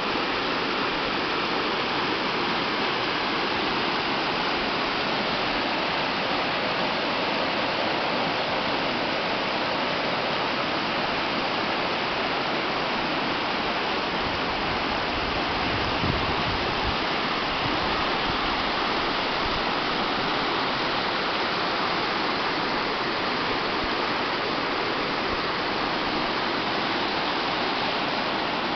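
Shallow mountain river rushing over rocks in white-water rapids: a steady, unbroken hiss of running water.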